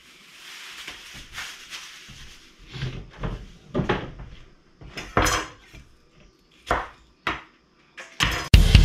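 Plastic bag crinkling as scallions are pulled out of it, then a few scattered knocks of things set down on a wooden cutting board. Loud rock music with drums cuts in near the end.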